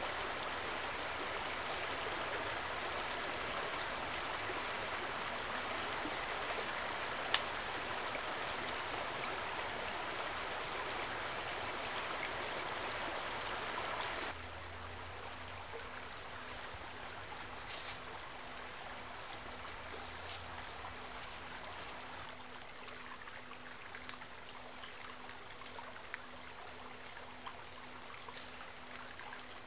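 Small rocky stream trickling and rushing steadily, louder for about the first half and then suddenly softer. A faint steady hum runs underneath, with one sharp click about seven seconds in.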